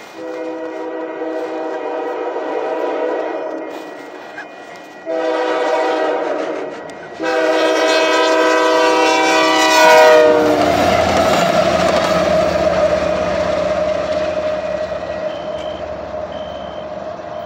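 Diesel locomotive's multi-note air horn sounding three blasts for the level crossing; the pitch of the last, longest blast drops as the locomotive passes. Then the train rolls by with a steady rumble and rattle of wheels, and a repeating high beep starts near the end.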